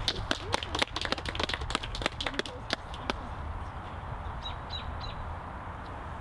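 Birds calling: a quick run of clicking, chattering calls for the first three seconds, then three short chirps a little over four seconds in, over a low steady background rumble.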